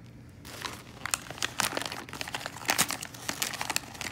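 Paper gift wrapping crinkling and rustling in quick irregular crackles as a wrapped present is picked up and handled, starting about half a second in.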